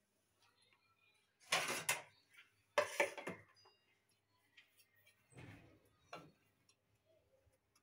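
Kitchen handling noises as dough and dishes are moved on the counter: two short, loud scraping rustles about a second apart, a softer one a couple of seconds later, and a few light clicks.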